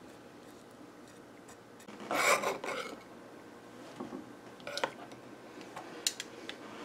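Kitchen utensils worked on a plastic cutting board: a short rasping rush about two seconds in, then a few light clicks and knocks of a knife and metal tongs being handled and set down.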